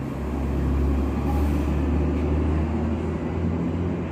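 New York City subway train giving off a steady, loud low hum of fixed pitch that swells about a second in and eases slightly near the end.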